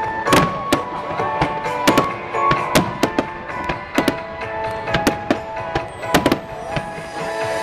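Fireworks bursting in an irregular string of sharp bangs, about two a second, over music playing with steady held notes.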